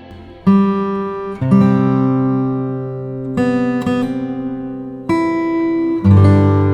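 Acoustic guitar strumming slow chords, about five strums, each left to ring and fade before the next.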